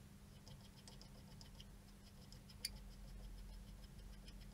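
Faint, rapid, even ticking, about six ticks a second, with one sharper click about two and a half seconds in, over a low steady hum.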